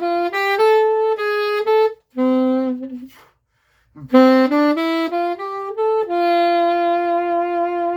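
Unaccompanied alto saxophone, an original 1876 instrument made by Adolphe Sax, playing a slow melody. It plays two short phrases of rising notes with a brief breath pause between them, and the second ends on a long held note.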